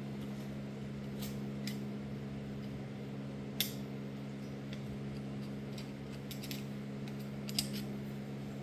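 A few sharp metallic clicks and taps from a Delco distributor's small parts being handled, its flyweights stuck fast, over a steady low hum.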